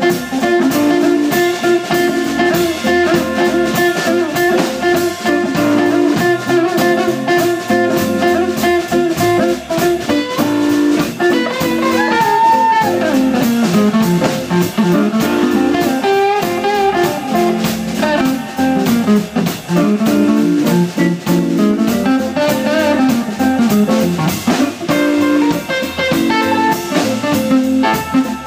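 Live blues band playing: two electric guitars over upright bass and a drum kit, in a steady groove.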